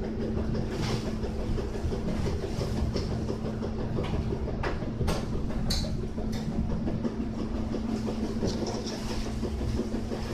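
Steady low machine hum with one constant tone, with a few light clicks about halfway through from small hand tools handling wire and a bead.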